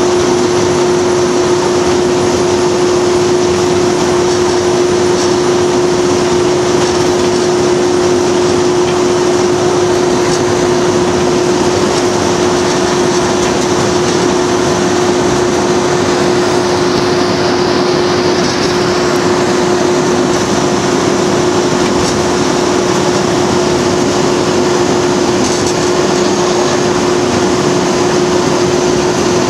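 Class 37/9 diesel locomotive 37905's Ruston engine running steadily under power while the locomotive travels, heard from inside the cab together with the rumble of wheels on the track. It holds one steady engine note throughout, without change.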